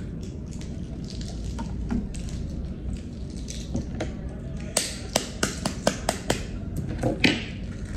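Balut eggshell being peeled by hand with faint crackling, then a run of about eight sharp taps in the second half: a spoon knocking on the eggshell to crack it.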